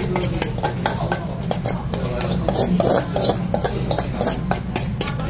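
A metal spoon scraping and knocking against a metal bowl as rice is emptied onto a hot pan: an irregular run of scrapes and clinks, several a second, over a steady low hum.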